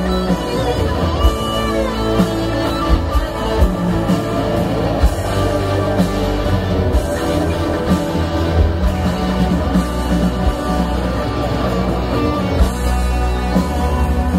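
Live rock band in an arena, with an electric guitar lead playing bent, sustained notes over bass, drums and keyboards, heard from the crowd.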